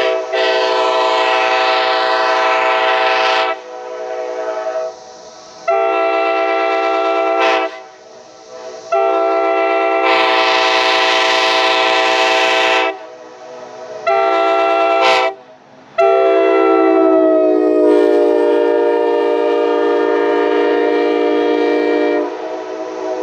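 A 2023 Nathan Airchime K5LA five-chime train horn (bells 1, 2, 3A, 4A and 5) blowing its chord in five blasts of varying length. The last blast is the longest, about six seconds, and its chord slides up in pitch at the start as it comes up to pressure.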